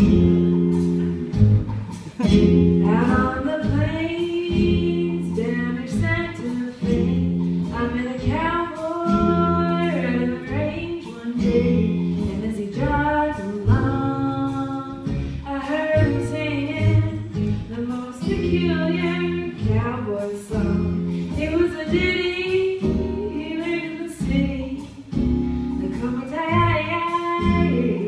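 A woman singing a song with instrumental accompaniment.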